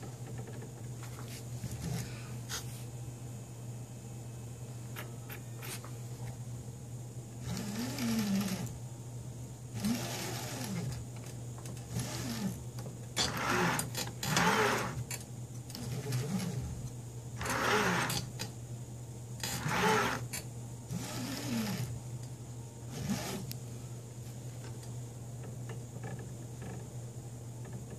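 Mendel90 RepRap 3D printer's stepper motors whirring in a series of short moves, each gliding up and then down in pitch as the print head travels to another spot on the bed for a levelling check. A steady low hum runs underneath.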